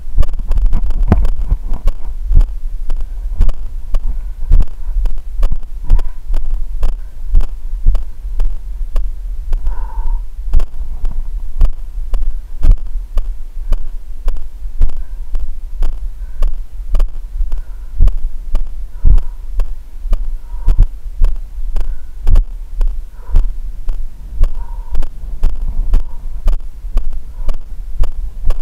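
A runner's footfalls jolting a body-worn camera while jogging on a dirt and grass trail: a steady rhythm of thuds over a constant low rumble on the microphone.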